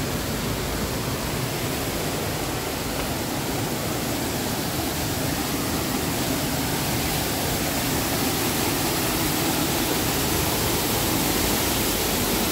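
Small waterfall splashing into a rock pool: a steady rush of falling water that grows a little louder toward the end.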